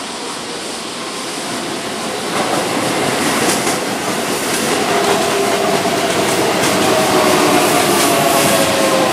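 Keihan 7200 series electric train passing close: the rumble of its wheels on the rails builds over the first few seconds, with light clicking, and from about halfway faint whining tones slide slowly downward.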